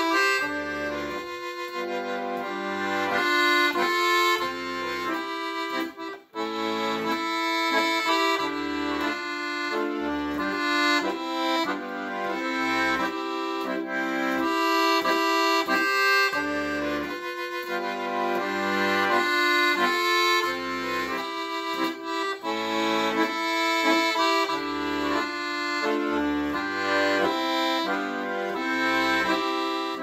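Piano accordion playing a tune: a right-hand melody over sustained notes, with the left-hand bass notes coming in a steady, repeating rhythm. The playing breaks off for a moment about six seconds in.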